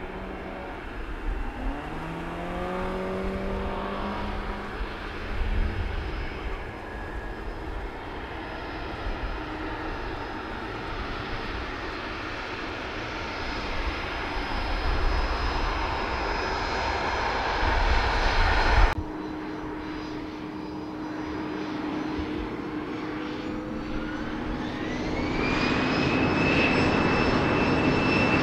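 Boeing 787-9 airliner's Rolls-Royce Trent 1000 jet engines heard from the ground as it climbs away after takeoff: a steady distant rumble with gusty low bursts. About two-thirds through, the sound cuts abruptly to another take, where a whining engine tone rises in pitch and the jet noise grows louder.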